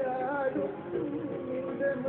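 Malayalam devotional song: a male voice sings a melody with quick pitch turns over sustained accompaniment notes.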